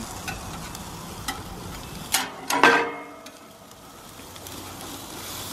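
Hamburger patties sizzling on a gas grill, with a few sharp clicks and a short burst of metal spatula clatter against the grill grate about two seconds in.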